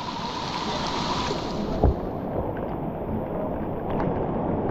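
Whitewater rapid rushing steadily, with a single sharp knock about two seconds in.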